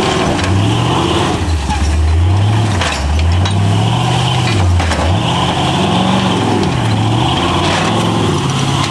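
Jeep Wrangler's engine revving up and falling back again and again as it crawls over boulders under load, with a few sharp knocks.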